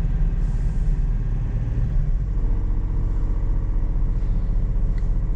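Toyota Duet's petrol engine idling steadily just after a cold start, after standing a full day out in the rain. A steady low chugging, with a slightly higher hum joining about halfway through.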